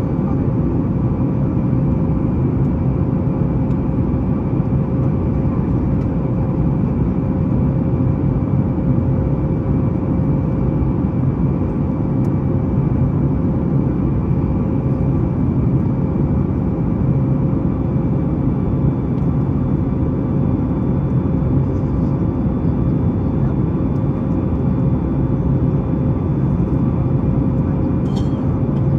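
Steady cabin noise inside a Boeing 737-9 MAX: the deep, even rumble and rush of its CFM LEAP-1B engines and the airflow, with a faint steady tone running through it.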